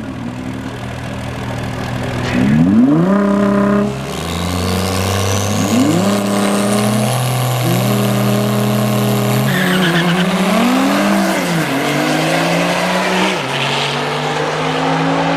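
Drag-racing cars accelerating hard down the strip. The engine pitch climbs and drops back several times as they shift through the gears, and a thin high whine rises over the first half.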